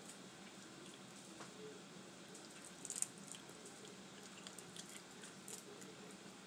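Boiled crawfish being peeled by hand: faint crackling and small clicks of the shells, with a sharper cluster of cracks about three seconds in.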